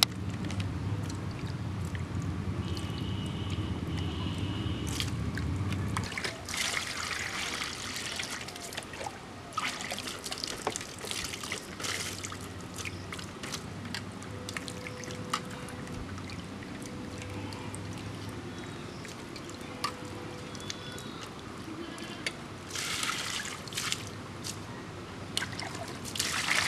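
Water sloshing, splashing and trickling in a steel bowl as fish pieces are rubbed clean by hand, with louder splashes now and then. Near the end, water is poured in from a mug.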